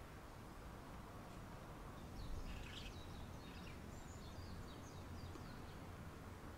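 Outdoor ambience at a pond: a low steady background rumble, with faint high chirps of small birds calling from about two seconds in until near the end.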